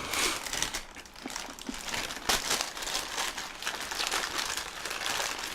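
Paper food wrapper crinkling and rustling in uneven, crackly spells, handled close to the microphone.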